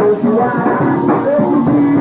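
Band music: a rock song built on Congo and Maracatu rhythms, with pitched melody lines over busy percussion.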